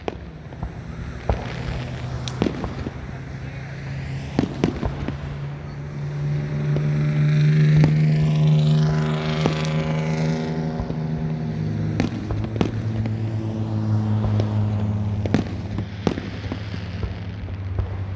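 Fireworks bursting, with scattered sharp bangs and pops throughout. A motor vehicle passes close in the middle: its engine hum swells to loudest about eight seconds in, then drops in pitch as it goes by.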